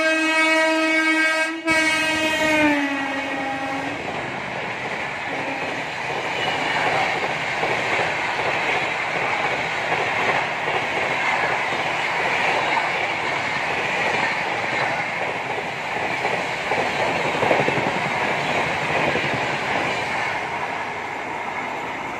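An express train's locomotive horn sounds for about three seconds, with a short break, and drops in pitch as the locomotive passes. Then the train's LHB coaches run through with a steady rumble and wheel clatter.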